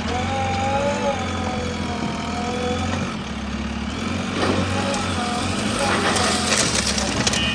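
Diesel engine of heavy machinery running steadily, with voices over it and some brief clatter in the second half.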